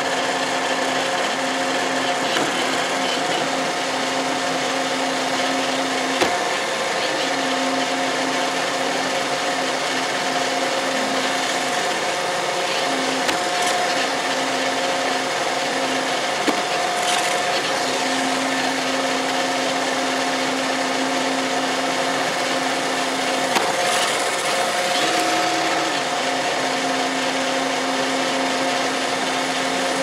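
Roomba robot vacuum running, heard from on top of it: a steady whir and hiss of its vacuum motor and brushes, with a hum that drops out and comes back as it moves, shifting higher briefly about 25 seconds in. A few sharp knocks.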